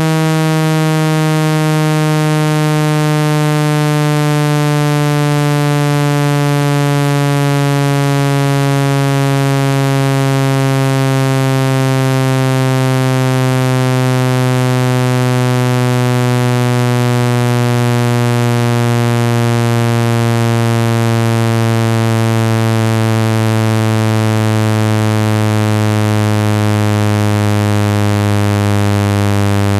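Synthesized low buzzing tone, played to shake water and dust out of a phone speaker, gliding slowly and steadily down in pitch.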